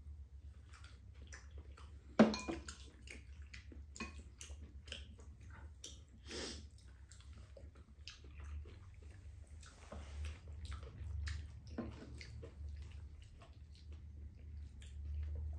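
Close-up eating sounds: chewing of stir-fried rice cakes, with scattered clicks of spoons and chopsticks against bowls and the pan, one sharper knock about two seconds in, over a steady low hum.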